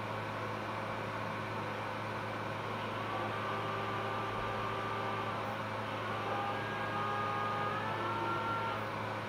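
Phacoemulsification machine running during cataract surgery: a steady hum and hiss. From about three seconds in come faint tones that step up and down in pitch, the machine's aspiration tones following the vacuum level.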